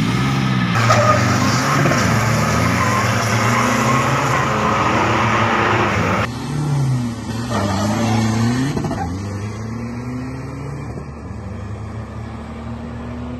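Nissan Navara D40 pickup's diesel engine revving hard at a drag-race launch, its pitch rising and falling. About six seconds in the sound cuts to a second recording in which the engine runs on, rising and falling in pitch, and gradually fades as the truck pulls away down the strip.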